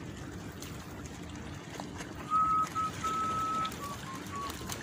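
Someone whistling a short tune: a few held notes at one pitch, then shorter notes stepping down, starting about halfway in, over a steady low background rumble.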